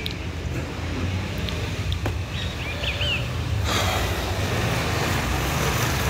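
Outdoor background noise: a steady low rumble like road traffic, with a rushing noise that swells about halfway through. A bird chirps a couple of times.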